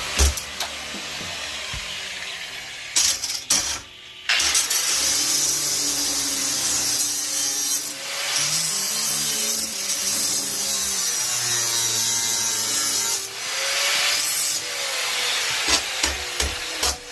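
Power tool sawing through material, its motor pitch sagging and recovering under load, with a brief pause about four seconds in.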